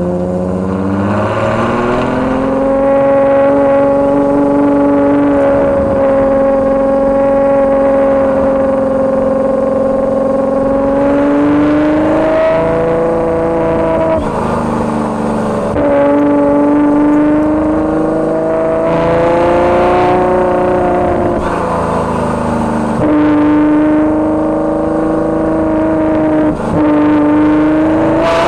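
Ferrari GTC4Lusso's V12 through a Capristo exhaust, heard close behind the car while driving. The engine note holds steady for long stretches, with several short steps up and down in pitch as the throttle and gears change.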